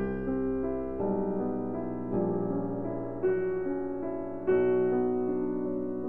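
Background piano music: sustained chords, a new one struck roughly every second.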